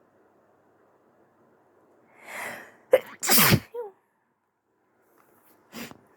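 A woman sneezing: a drawn-in breath about two seconds in, then a sharp loud sneeze burst that trails off within about a second. A brief, quieter sound follows near the end.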